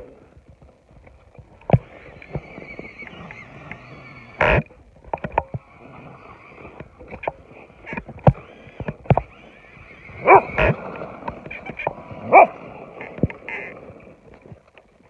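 Stock Tamiya Super Clodbuster RC monster truck's electric motors whining steadily as it drives through snow, broken by frequent sharp clicks from an old stick radio controller. A dog yelps and yips several times, loudest about ten and twelve seconds in.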